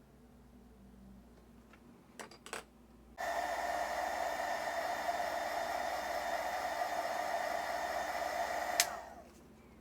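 Electric hot-air blower running steadily for about six seconds: it switches on suddenly, then cuts off with a click and its motor winds down with a falling whine. It is warming a freshly applied waterslide decal on a die-cast car body. A couple of short handling clicks come before it starts.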